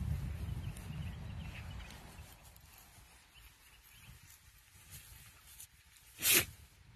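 A dog rolling on its back in grass, with soft rustling that dies away after about two seconds; near the end a single short, sharp hiss, the loudest sound.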